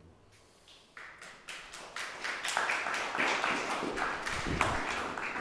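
Audience applauding: clapping starts about a second in and grows louder.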